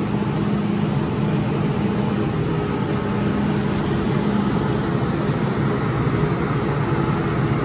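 MTR M-train electric multiple unit running, heard from inside the cab: steady running noise with a low hum from the traction motors that fades about four and a half seconds in.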